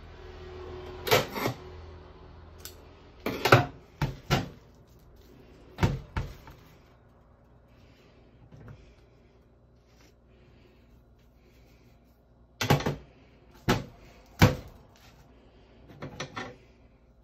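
Sharp clicks and knocks of kitchen utensils being handled on a counter while a beef roast is tied with cotton string, coming singly and in pairs with quiet gaps between.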